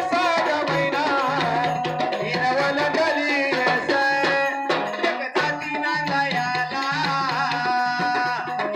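Live Marathi devotional folk song through microphones and speakers: a voice singing a wavering melody over an electronic keyboard and a steady hand-drum rhythm.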